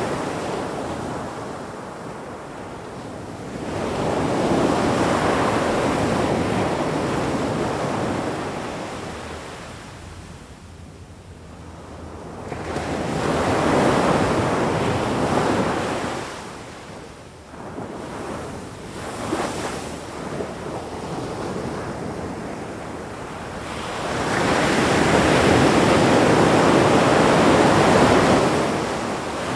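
Ocean waves breaking and washing on a shore, in slow swells that rise and fall about every ten seconds, with three surges in all.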